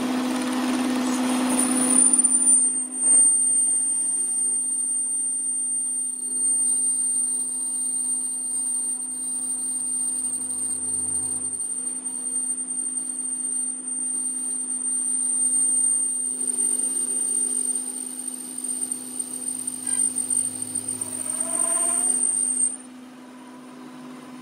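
Metal lathe turning a steel gear shaft with the cutting tool in the cut, peeling off chips: a steady motor hum under a high, thin whine from the cut. The whine starts about two seconds in and stops shortly before the end, leaving the lathe running more quietly.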